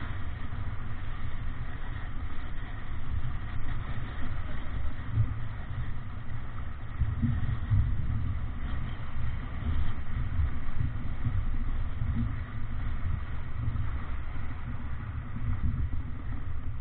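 Wind rumbling on the microphone over water rushing and splashing along the hull of a Davidson 36 sailboat heeled hard under sail in strong wind, rising and falling in level.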